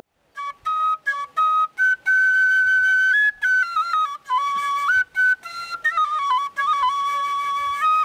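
Solo flute playing a slow melody as background music. After a brief silence it opens with short separated notes, then moves to longer held notes that step gradually lower.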